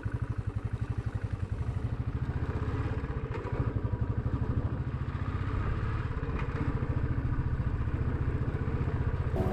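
Motorcycle engine running under way, a rapid, even low thumping of its firing pulses.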